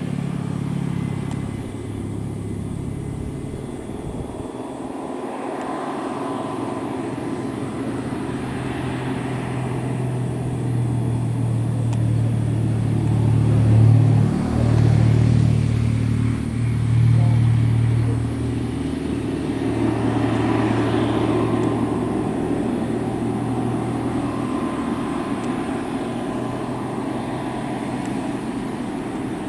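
Heavy Scania truck's straight-six diesel engine running under load as it pulls uphill: a steady low drone that grows louder through the middle, with a brief dip about halfway through.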